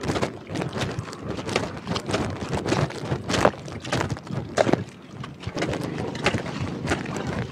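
A spade chopping and scraping into waterlogged mud, giving irregular wet thuds several times a second, as a drainage channel is dug.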